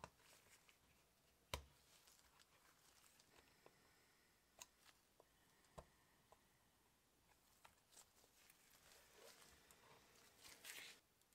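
Faint handling clicks and taps of a Zune media player's metal back case being fitted onto its frame, with one sharper click about a second and a half in and a short rustle near the end.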